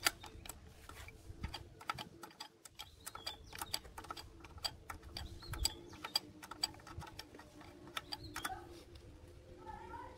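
Irregular metallic clicks and ticks of a small wrench working the mounting bolts of an electric motor, several a second, uneven in spacing.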